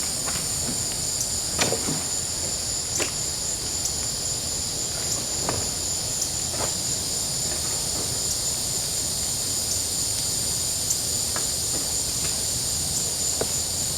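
Steady high-pitched chorus of crickets and other insects, with a few light knocks and taps scattered through it as weights are set down on the glued foam.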